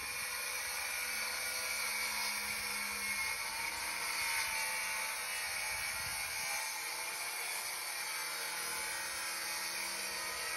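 Handheld circular saw ripping lengthwise through a thick plank of keel timber, running steadily under load with the even hiss of the blade in the wood.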